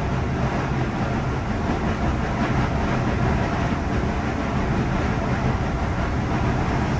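Motorized target carrier of an indoor shooting range running steadily, bringing the paper target back along its overhead rail to the firing line.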